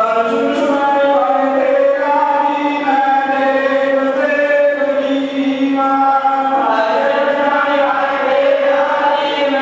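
Devotional chant sung by a group of voices in long held notes, going on without a break.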